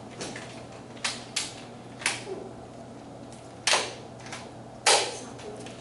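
Nerf Rival foam-ball blasters being fired: about half a dozen sharp pops and clacks at irregular spacing, the two loudest nearly four and five seconds in.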